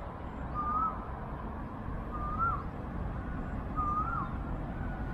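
A bird calling over and over, a short whistled note that rises and then drops sharply, repeated evenly about every second and a half, three times, over a steady low rumble of city traffic.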